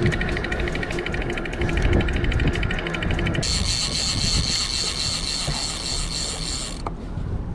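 Large single-action fishing reel being cranked to reel in a fish, its ratchet clicking in a fast, even run. About halfway through, the clicks merge into a steadier, higher whirr that stops shortly before the end.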